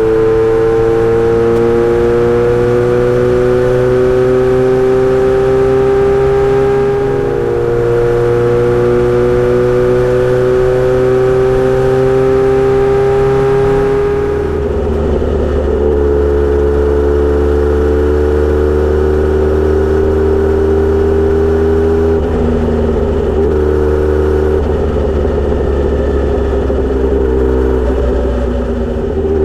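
Kawasaki Z900RS inline-four running through a Misty Kintaro short straight-pipe silencer, pulling under load in gear. The note climbs slowly, drops back at gear changes about 7 and 14 seconds in, and then holds a nearly steady pitch.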